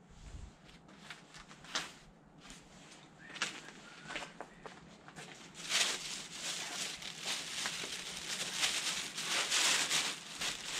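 Thin plastic carrier bag rustling and crinkling as it is handled, loud and continuous from about halfway through; before that, a few scattered clicks and light rustles of handling.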